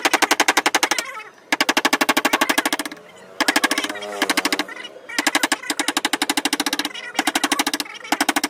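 Carving chisel driven into teak by rapid hammer taps, about a dozen strokes a second, in runs of one to two seconds with short breaks between.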